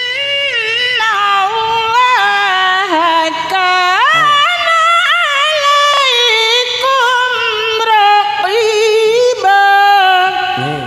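An older woman reciting the Qur'an in melodic tilawah style through a handheld microphone, singing long, high, ornamented lines that glide and waver in pitch, in maqam bayyati at its top register (jawab al-jawab). The voice fades out near the end.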